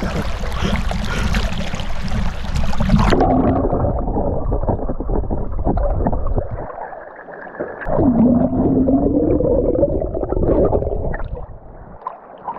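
Fast river current rushing and splashing. About three seconds in the sound suddenly turns muffled and gurgling, as water heard with the microphone under the surface, churning, with a low tone that dips and rises near the middle.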